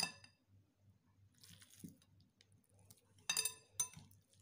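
Metal utensil clinking against a glass bowl while stirring raw beef chunks into a thick spice marinade: a sharp ringing clink at the start, a soft wet squelch about a second and a half in, then a quick run of clinks near the end.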